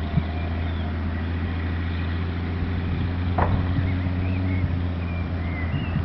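Massey Ferguson 6170 tractor's diesel engine running steadily as it pulls a plough, with gulls calling over it and one short sharp call about three and a half seconds in.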